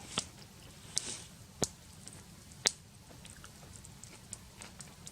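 Quiet eating sounds: soft chewing with a few sharp clicks about a second apart, then smaller ticks.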